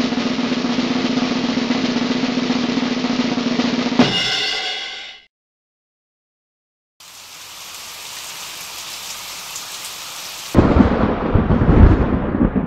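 A dense rolling noise with a low hum, cut off about four seconds in by a sudden hit that rings for about a second. After a short silence comes a steady hiss, then, near the end, a loud low rumbling noise.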